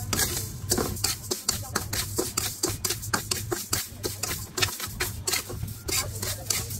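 Quick, irregular tapping and knocking, several strikes a second, over a low steady hum.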